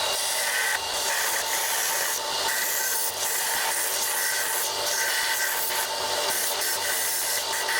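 Sanding or abrading by hand, in rhythmic back-and-forth strokes about once a second over a steady hiss.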